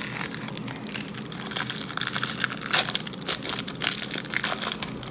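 Crinkling and crackling of a foil trading-card pack wrapper being handled, with one louder crackle near the middle.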